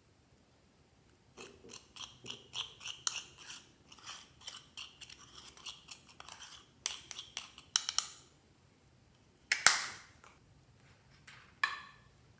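Clear slime being squeezed and kneaded by hand: a quick run of small sticky clicks and pops, then two louder crackling pops near the end.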